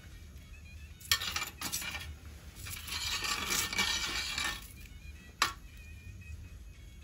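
Metal spoon clinking against a large enamel pot and scooping through simmering broth to skim off foam. There are sharp clinks about a second in and again near the end, with a stretch of scraping and liquid noise between them.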